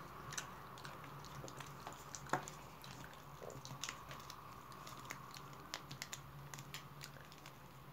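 Faint, irregular light clicks and ticks of a Far Eastern leopard cat's paws and claws on a linoleum floor as it walks about, over a low steady hum.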